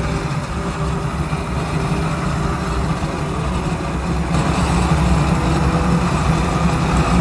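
Steady, loud rumble of heavy industrial machinery, with a hiss that grows brighter about four seconds in.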